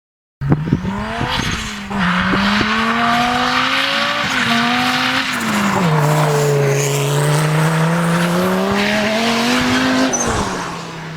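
Straight-piped 2.2-litre turbocharged five-cylinder (Audi AAN) engine of a racing buggy, run hard: it cuts in suddenly about half a second in, its pitch climbs, drops back and climbs again several times, then falls away near the end.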